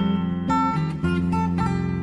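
Calm instrumental music led by plucked acoustic guitar, with notes changing about every half second over a sustained low bass.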